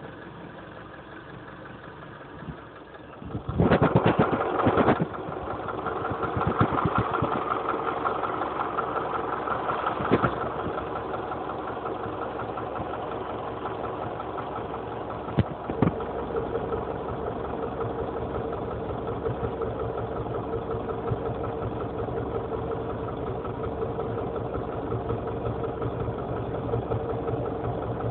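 Honda CR-V engine running with a knock in it. It gets suddenly louder for a second or so about three and a half seconds in, then runs on steadily at the higher level.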